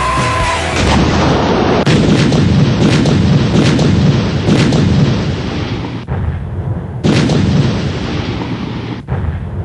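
Heavy booms of tank gunfire, several shots about one to two seconds apart with a low rumble lingering between them, from the Type 90 main battle tank's 120 mm gun. A music track ends in the first second.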